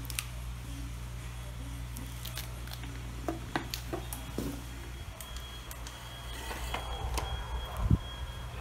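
Handling noises: scattered sharp clicks and light rustling over a steady low hum, with one dull thump near the end that is the loudest sound.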